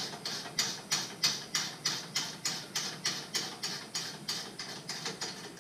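Ratchet wrench being worked in quick, even back-and-forth strokes, about three a second, each stroke a short rasp of pawl clicks, turning a bolt on a pinsetter. The strokes grow weaker near the end.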